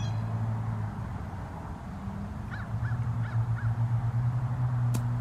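A bird calling four times in quick succession, short calls about a third of a second apart, over a steady low hum.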